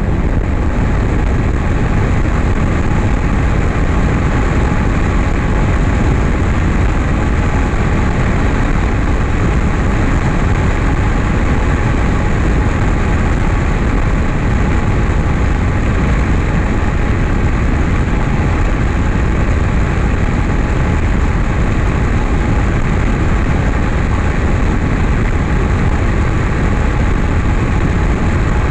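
High-wing single-engine light airplane's piston engine and propeller running steadily at cruise, with heavy wind rush, heard from a camera mounted on the outside of the airframe. The sound stays even throughout, with a faint steady hum above the low drone.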